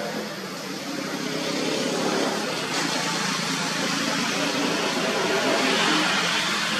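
Engine noise of a motor vehicle running nearby, a steady hum that grows louder over the first couple of seconds and holds.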